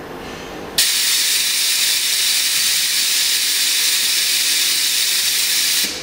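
Pulse hot-press flex-cable bonding machine letting out a steady hiss of compressed air near the end of its bonding cycle. The hiss starts abruptly about a second in, holds steady for about five seconds and cuts off just before the end.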